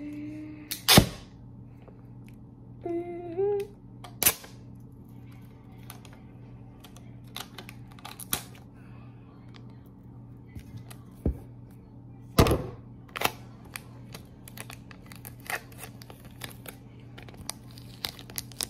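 A roll of clear packing tape being handled and picked at with the fingers to find its loose end: scattered small clicks and taps, with a few sharp louder knocks, the loudest about a second in and two more about two-thirds of the way through.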